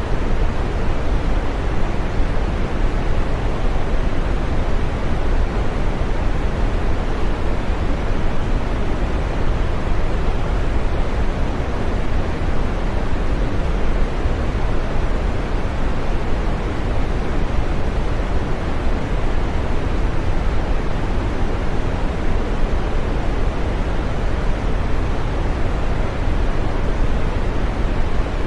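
Steady green noise: an even, unbroken hiss, fullest in the low and middle range and softer in the highs, with no change throughout.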